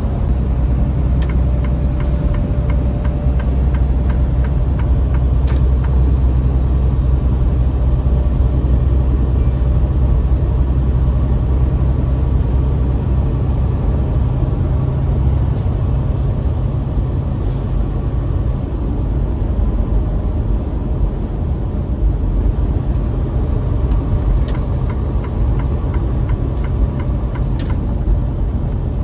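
Semi truck's engine and road noise inside the cab while driving: a steady low rumble, slightly heavier in the first half, with a few faint ticks.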